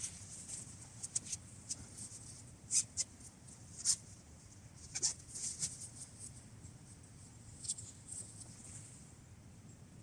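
Tent fabric rustling and crinkling as it is spread out and handled on the forest floor, in scattered sharp crackles, about eight of them, that die away in the last couple of seconds.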